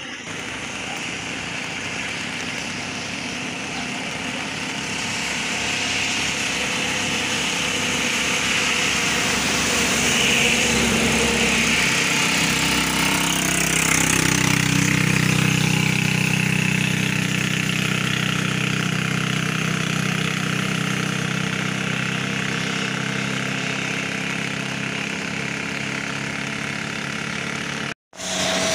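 A steady rushing hiss, with an engine running steadily at an even pitch from about twelve seconds in.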